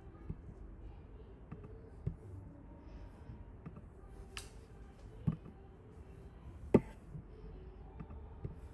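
Scattered clicks and taps of someone working a computer, about a dozen spread irregularly, the sharpest a little under seven seconds in, over a low steady room hum.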